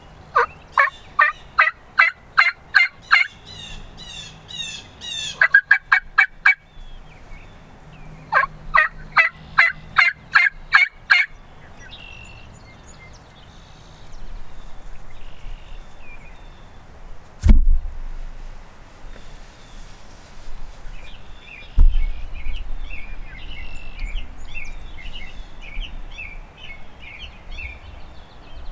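Wild turkey yelping in two runs of about ten notes each, a few seconds apart, with a quicker burst of notes between them. Later small birds chirp, and a single sharp knock, the loudest sound, comes about two-thirds through, with a second, fainter one a few seconds after.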